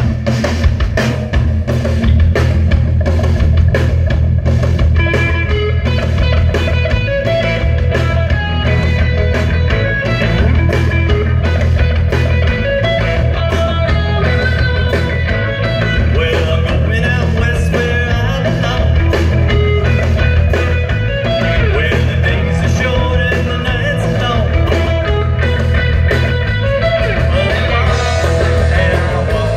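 Live amplified rock band playing a surf-rock number: electric guitars over bass guitar and a drum kit.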